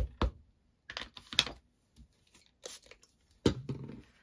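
Plastic Distress Oxide ink pad tapped twice on a clear acrylic stamping block, then rubbing and handling noises as the ink is worked on, and a sharp knock about three and a half seconds in.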